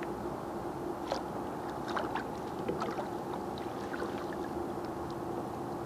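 Water lapping and splashing in small sharp bursts against a kayak hull as a hooked smallmouth bass is played close to the boat, over a steady low hum.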